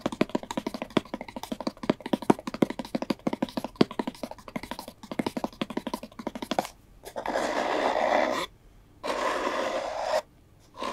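Fingertips and nails tapping quickly on a small cardboard gift box. From about seven seconds in, two longer scratching and rubbing strokes across the box's surface.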